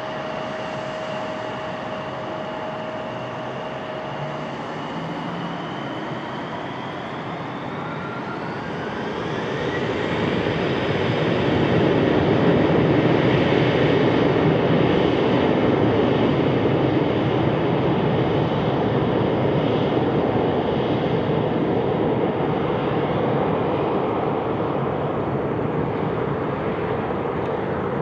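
Jet airliner engines: a whine rises in pitch, then loud engine noise builds to a peak about twelve seconds in and slowly fades away.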